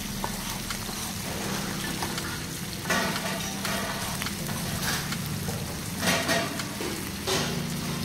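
Masala-coated whole fish shallow-frying in oil on a flat tawa griddle: a steady sizzle that swells louder about three times.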